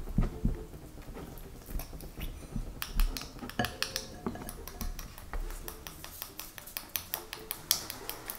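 Homemade slime being stirred with a plastic spoon in a glass bowl and kneaded with fingers. It gives scattered sticky clicks and light taps, many in quick runs.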